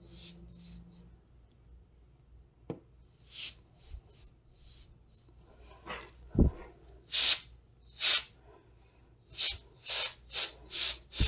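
Short hissing bursts of canned air blown through a straw nozzle, a few puffs spaced out at first, then a quick run of about two a second near the end. A single low thump comes about six and a half seconds in.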